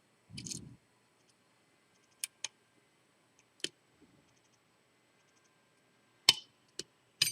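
Lock pick and tension wrench working the pins of a seven-pin Lockwood V7 padlock: a few scattered, sharp metallic clicks, the loudest near the end, with a soft low thump about half a second in.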